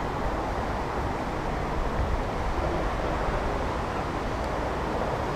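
Steady outdoor background noise, a low rumble with an even hiss above it and no distinct events.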